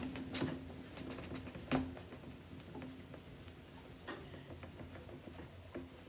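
Damp cloth rubbing over a dry-erase board, scrubbing at old marker that won't wipe off, with scattered light taps and clicks. The sharpest taps come just under two seconds in and about four seconds in.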